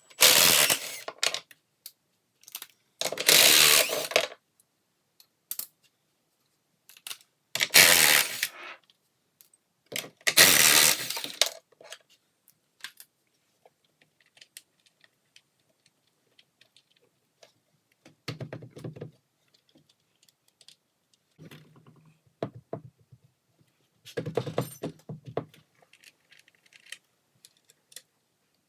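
Hand ratchet clicking in four short runs while backing off the nuts on a Sea-Doo jet pump's impeller housing, followed by quieter metallic clinks and clatter of tools and parts.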